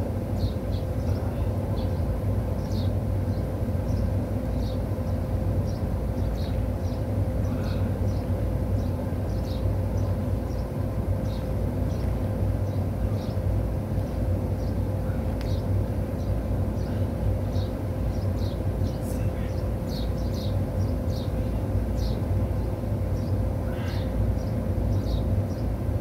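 Steady low machine hum with a constant tone, unchanging throughout, with faint short high chirps scattered over it.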